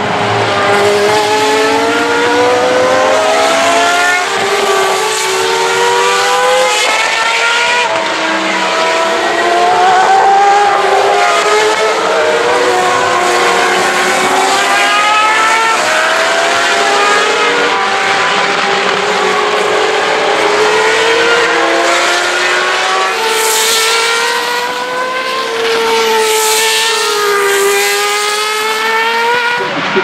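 Several open-wheel single-seater race cars lapping at full race pace, their engines overlapping as they rise and fall in pitch through gear changes, braking and acceleration, with cars passing one after another.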